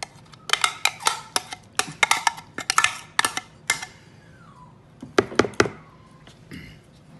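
Rapid, irregular knocks and clicks as a glass jar of crushed pineapple is tapped and shaken to empty it into a mixing bowl, a dense run of them for about four seconds and another short cluster about five seconds in.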